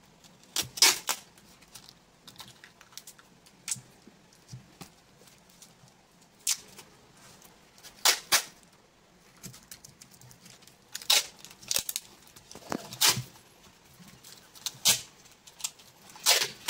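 Masking tape being pulled off the roll in short rips, about a dozen at irregular intervals, and pressed onto cardboard wrapping around a battery pack.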